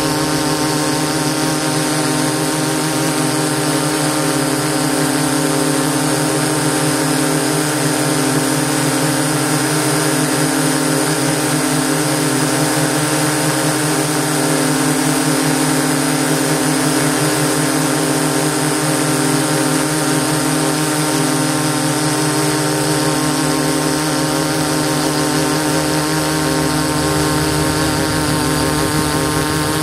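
DJI S800 hexacopter's six electric motors and propellers running in flight, heard close up from the camera on board: a steady, many-toned hum over rushing air noise.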